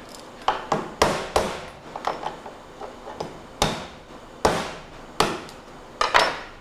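Chef's knife blade striking the shell of a boiled lobster on a cutting board, cracking it open: about ten sharp knocks at irregular spacing.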